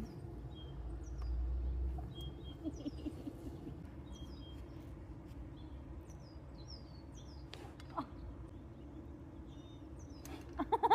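A bird chirping repeatedly, short high falling chirps about once a second.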